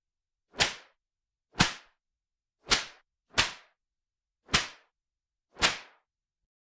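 Whip cracks: six sharp snaps, roughly a second apart, each dying away quickly.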